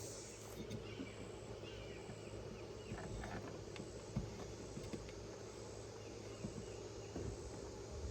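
Soft scattered knocks and rustles as electrical cable is worked through an outlet box, over a faint high insect call repeating evenly about every half second.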